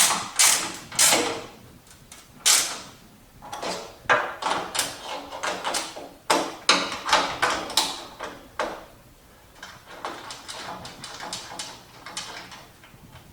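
Hand ratchet and socket tightening bolts, worked in runs of quick strokes, each stroke clicking, with short pauses between runs and fading near the end.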